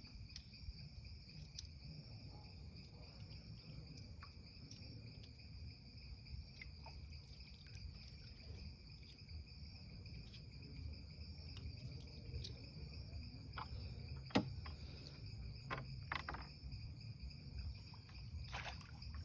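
Crickets trilling in a steady, unbroken high chorus, over a low rumble, with scattered faint clicks and one sharper tap about fourteen seconds in.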